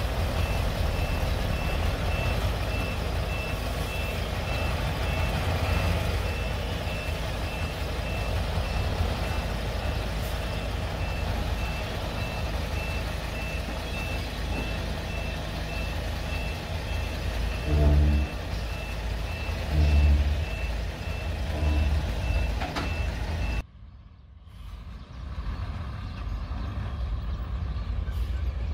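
Back-up alarm on heavy earthmoving equipment beeping steadily over a running diesel engine, with two short, loud low rumbles about 18 and 20 seconds in. The sound drops away abruptly about 24 seconds in, then a quieter engine rumble returns without the beeping.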